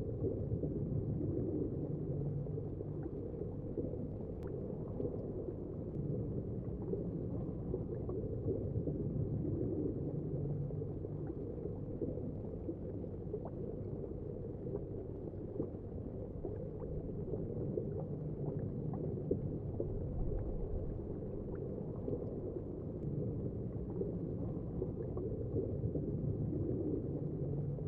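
A steady low rumbling noise with faint scattered ticks.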